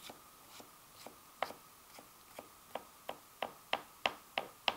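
Kitchen knife chopping diced potato on a plastic cutting board: a series of short sharp knocks. They are spaced out at first, then quicken to about three a second and grow louder toward the end.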